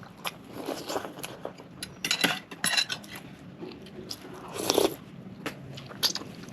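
Close-miked eating: crunchy bites into fried chicken and chewing, with clusters of crackly crunches around the second and third seconds and a louder crunch near the end, plus light clinks of cutlery against dishes.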